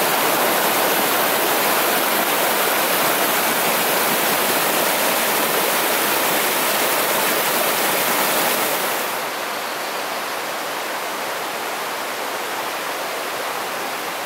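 Rushing water of a shallow, rocky mountain river running over boulders in riffles, a steady hiss. About nine seconds in it turns quieter and duller.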